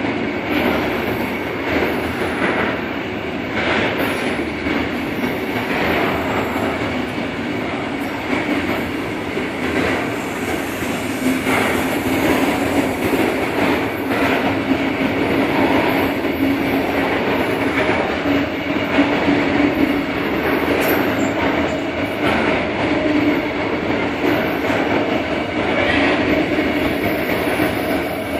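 Freight train rolling past: steady wheel and rail noise with repeated clacks as the wheels cross rail joints. A faint steady tone joins about a third of the way in.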